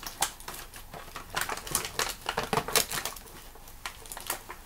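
Small wooden puzzle pieces clicking and clacking together as they are handled, a quick irregular run of knocks.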